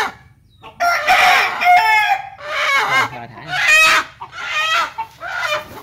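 A chicken calling loudly, about five calls one after another starting around a second in.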